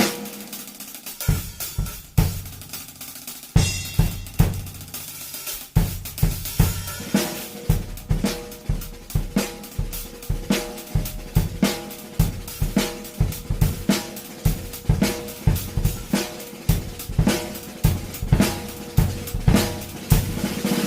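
A drum kit being played for a sound test: bass drum, snare and hi-hat or cymbals. A few scattered hits give way, about six seconds in, to a steady, even beat.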